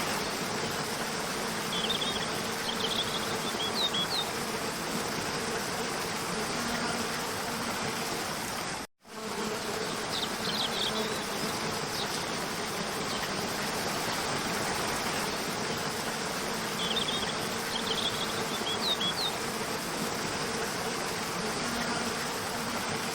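Stream rushing and splashing over rocks, a steady even water noise, with a few clusters of short high chirps on top. The sound cuts out for a moment about nine seconds in.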